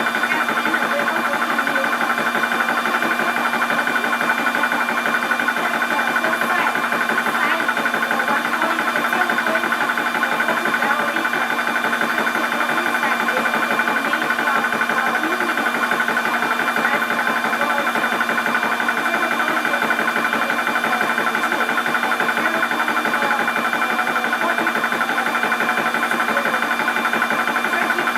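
Portable 12 V high-pressure PCP air compressor running steadily, filling a 0.25 L air tank, with an even pitch throughout.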